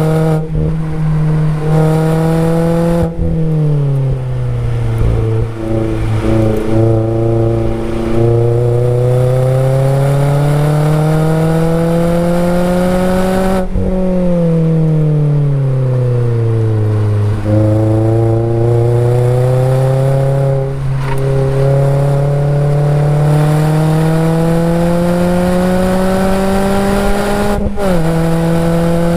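Mazda MX-5 Miata ND four-cylinder engine heard through its aftermarket axle-back exhaust, recorded close to the tailpipe, driven hard. The note climbs under acceleration and falls away twice as the driver eases off for corners, a few seconds in and again about halfway. It steps down sharply with a quick upshift near the end.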